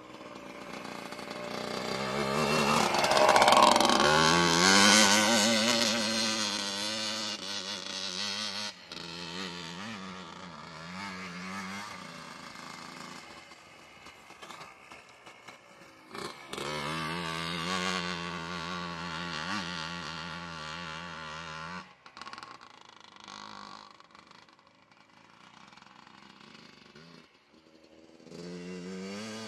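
Yamaha Blaster ATV's two-stroke single-cylinder engine revving up and down as it is ridden over gravel. It is loudest a few seconds in as the quad passes close, then fainter with the distance, and it cuts off abruptly a few times.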